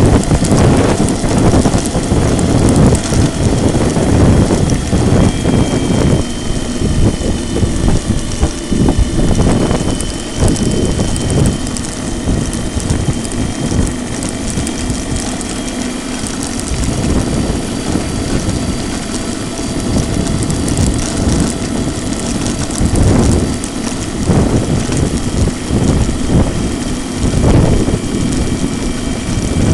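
Riding noise of an 800 W electric scooter moving over brick paving: wind buffeting the microphone and tyre rumble, with a faint high whine from the motor that drifts slowly in pitch. It is louder in the first several seconds and again near the end.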